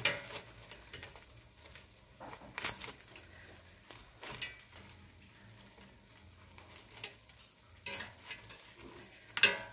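Metal tongs clicking and scraping against an air fryer basket while chicken wings are turned over: scattered separate knocks, the loudest at the very start and near the end.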